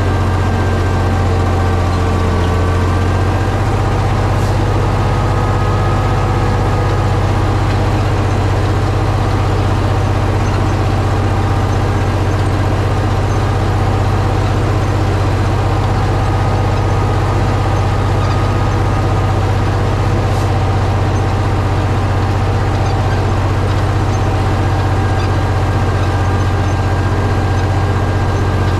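Tractor diesel engine running at a steady speed, a constant deep drone that does not change.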